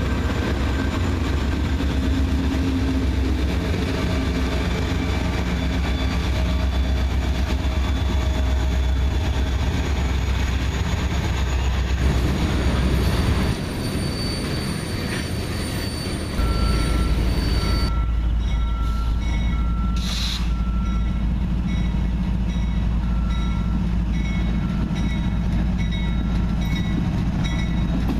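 CSX diesel freight train passing close by: a locomotive's engine rumble and wheel noise. About halfway the rumble drops for a few seconds while covered hopper cars roll past, then a second locomotive's rumble comes back in.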